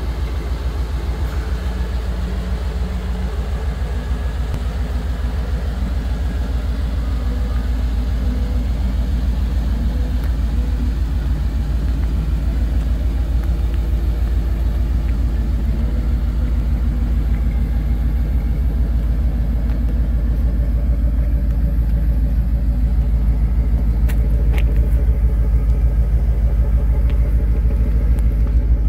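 The fuel-injected 350 cubic-inch (5.7 L) TBI V8 of a 1968 Chevrolet C10 pickup idling steadily with a low, even pulse, growing slightly louder toward the end.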